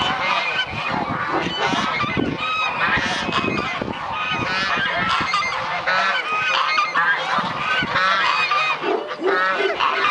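A flock of domestic geese honking, many calls overlapping without a pause.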